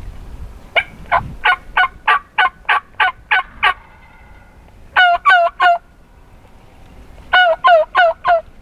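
Turkey yelps: a run of about eleven evenly spaced notes, about three a second, then after a pause three louder yelps, and near the end four more.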